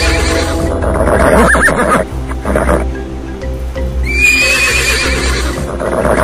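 A horse whinnying over a backing music track; the same trembling whinny comes round again about four seconds in as the music loops.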